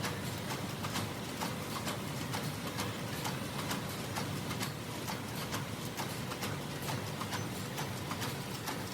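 Wire mesh machine running, making steel wire netting for bird cages: a steady mechanical noise with sharp clicks about two or three times a second.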